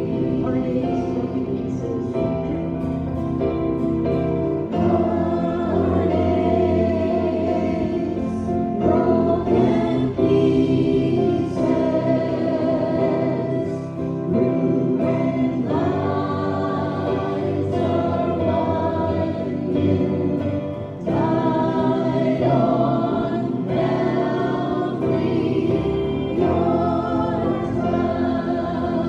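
A group of voices singing a gospel song together.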